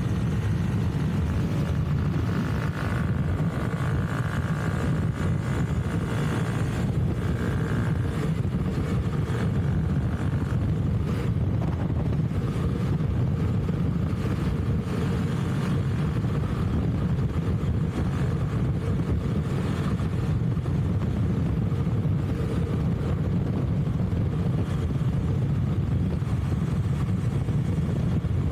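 Steady riding noise from a Honda CT125 Hunter Cub's 125 cc single-cylinder engine cruising at an even speed, mixed with wind rushing over the bike-mounted microphone.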